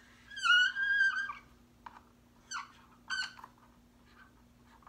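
Dry-erase marker squeaking on a whiteboard: one long squeak of about a second as a circle is drawn, then two short squeaks as a lightning bolt is drawn inside it. A faint steady low hum runs underneath.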